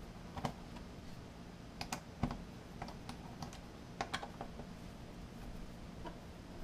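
Faint, scattered small clicks and taps, some in quick pairs at irregular moments, from a screwdriver working the bottom screws of an Intel NUC mini PC and the unit being handled.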